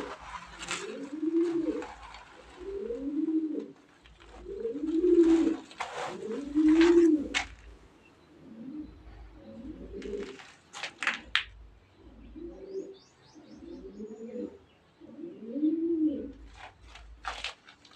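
Pigeons cooing over and over in low, rolling calls, with a few sharp taps or clicks between them.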